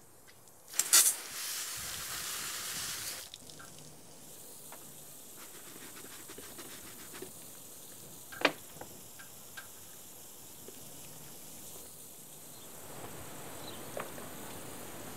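A sharp click about a second in, then water spraying from a garden hose for about two seconds. After that, a few small clicks and taps over a quiet outdoor background.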